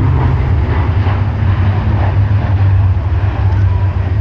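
Aircraft flying low past, a steady low engine drone.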